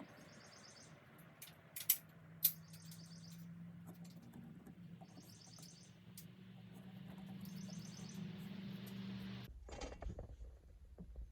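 Faint, high, rapid chirping phrases from a bird, repeated four times about two and a half seconds apart, over a low steady hum. Two sharp clicks come about two seconds in.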